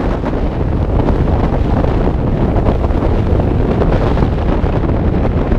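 Strong wind buffeting the microphone of a camera mounted on a moving vehicle: a loud, steady low rumble with constant rapid flutter.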